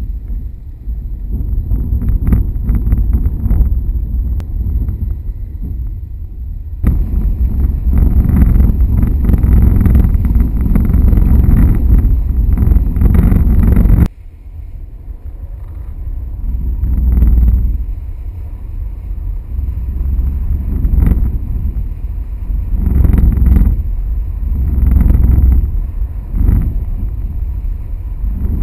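Heavy wind rumble and buffeting on the microphone of a camera mounted on a flying kite, swelling and easing in gusts. It jumps abruptly louder about seven seconds in and drops sharply about halfway through.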